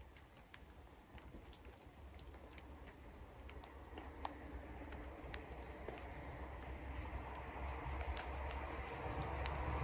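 Woodland ambience: scattered light ticks and pattering, and from about seven seconds in a bird repeating short high notes in a quick series, over a low rumble that grows louder toward the end.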